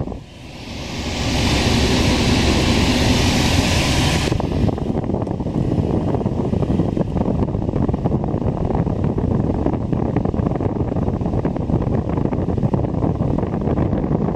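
Ford Fiesta's AC blower pushing air out of the dashboard vent: a steady, loud rush of air with wind noise on the microphone. A brighter hiss sits on top for about the first four seconds, then drops away. The air from the vent is cold, so the AC is cooling again.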